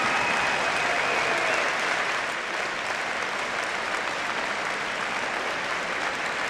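Crowd applauding steadily, easing slightly about two seconds in.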